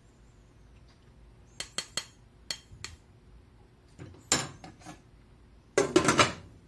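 A white ceramic serving spoon tapping against a pot and plate as chicken feet are dished out: a few sharp clinks, then a louder clatter. Near the end a glass pot lid is set onto the pot with the loudest rattling clatter.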